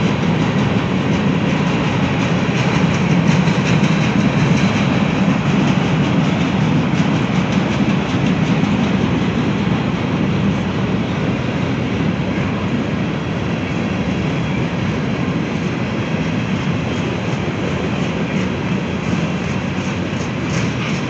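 A mixed freight train's covered hoppers and tank cars rolling past: a steady rumble of steel wheels on the rails, with light clicking.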